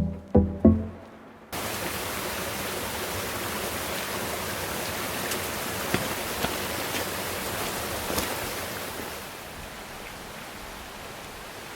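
A few plucked music notes end suddenly about a second and a half in, giving way to the steady rush of falling water, which drops a little quieter near the end.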